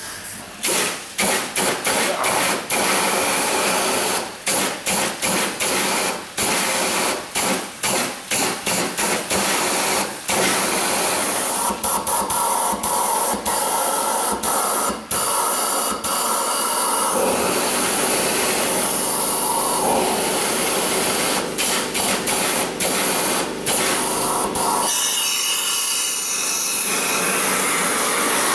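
Heater-core flush gun blasting compressed air mixed with water into the engine's cooling passages, a loud spraying hiss. For the first ten seconds or so the trigger is pulsed in many short bursts, then it is held on almost steadily. The engine's cooling system is being flushed of thick, mud-like sludge.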